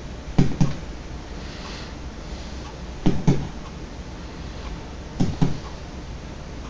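A man making vocal sound effects: pairs of two quick, low pops repeating about every two and a half seconds, three pairs in all.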